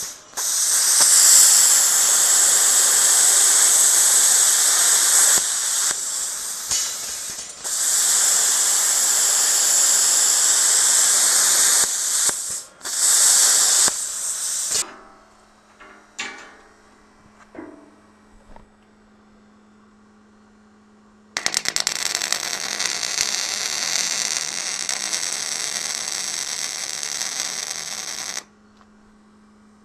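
A plasma cutter hissing as it cuts through rebar, in several runs of a few seconds each with short breaks. After a quieter stretch with only a low steady hum, a stick welder's arc crackles for about seven seconds as a rebar piece is welded onto a steel post, then stops.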